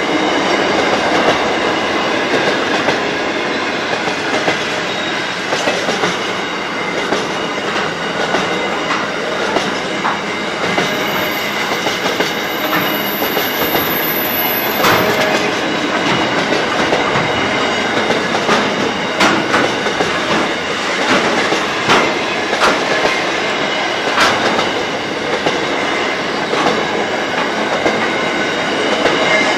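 Container wagons of a long intermodal freight train rolling past: a steady rumble and rattle of steel wheels on rail, with a thin wheel squeal and scattered sharp clicks and clunks from wheels and couplings, most of them in the second half.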